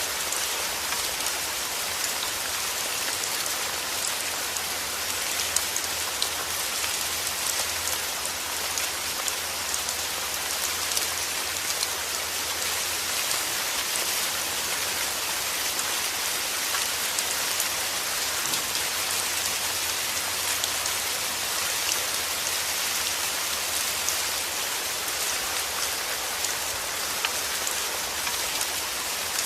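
Steady heavy rain falling and pattering on surfaces, a dense even hiss dotted with individual drop ticks, over a faint low rumble.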